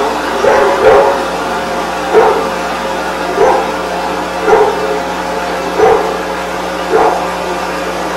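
Dog barking repeatedly, single barks spaced about a second apart, over a steady hum.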